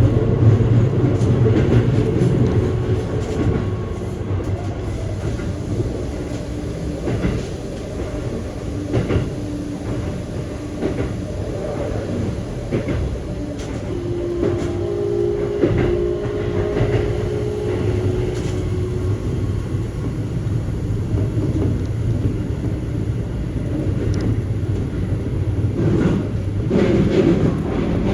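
Keikyu electric commuter train running, heard from inside the car: a continuous low rumble of wheels on track with scattered clicks from rail joints, and a short steady tone near the middle.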